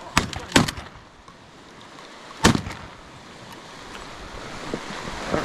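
Three shotgun shots at a duck: two in quick succession at the start and a third about two seconds later. Waves wash on the shore between them.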